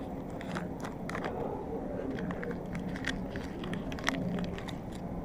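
Plastic food packet crinkling and crackling as it is handled and torn open by hand: a run of quick, sharp crackles over a steady low hum.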